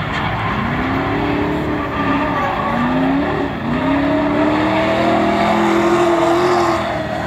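Drift car engines revving up and down again and again as two cars slide in tandem, their rising and falling pitch over the hiss of skidding tyres.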